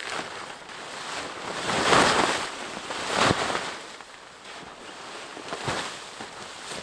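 A few slow footsteps crunching in snow, the loudest about two and three seconds in.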